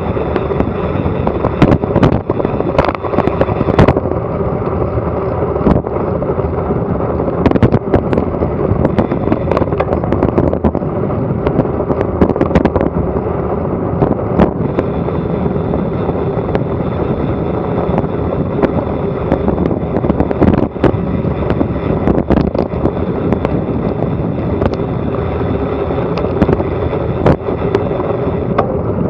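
Loud, steady wind rush on an action camera's microphone during a fast bicycle descent, with frequent sharp knocks and rattles from the bike and camera mount over the road surface.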